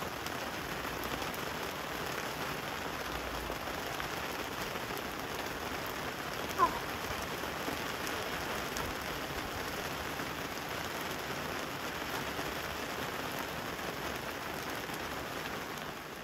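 Steady rain of a brief downpour falling on open grassland, an even hiss throughout. About six and a half seconds in there is one short, sharp falling note.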